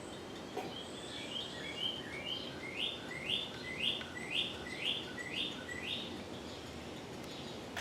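A songbird sings a run of about a dozen quick downward-slurred chirps, roughly two a second, which stop about six seconds in. Under it is the steady whir of a ceiling fan running on high.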